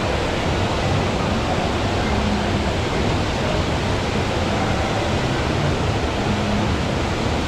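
Steady rushing background noise with a faint murmur of distant voices.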